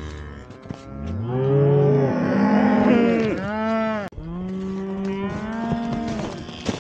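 Several cows mooing, long calls overlapping one after another, loudest a couple of seconds in.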